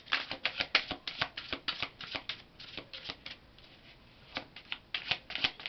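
Tarot deck being shuffled by hand, a rapid run of card flicks and snaps. It eases off for about a second around three seconds in, then picks up again.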